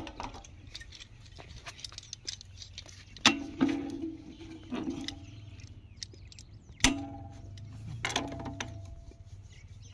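Pipe wrench clinking and knocking against a metal pipe and its fittings as a pipe joint is worked tight, with small clicks and three sharp ringing knocks, about three, seven and eight seconds in.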